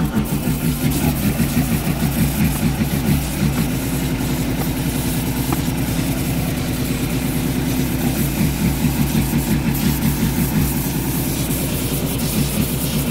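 Pressure washer running: a steady drone from its motor and pump that pulses rapidly and evenly, with the hiss of the water jet spraying over a bare cast-iron Cummins 6BT engine block. The pitch of the drone shifts slightly a few seconds in.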